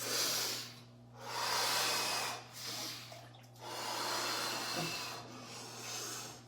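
Heavy, forced breaths through the mouth, about five in six seconds, from a man sitting in ice-cold water: cold-shock breathing.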